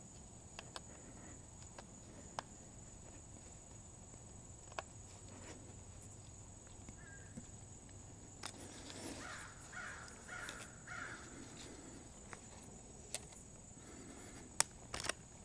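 Faint scattered metal clicks of thin-tipped snap ring pliers easing a split ring onto the splines of a GM 4T40E/4T45E transaxle stub shaft, with a run of four short faint calls about half a second apart a little past halfway.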